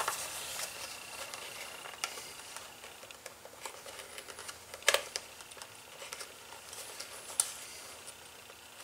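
Quiet handling and scraping of leather as a small metal blade picks and cuts old stitching out of a leather holster seam. A few sharp clicks, the loudest about five seconds in.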